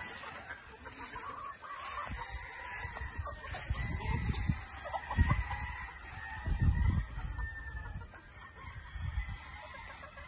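A flock of gamecocks and hens clucking, with roosters crowing. Several low rumbles, the loudest sounds, come in the middle of the clip and again near the end.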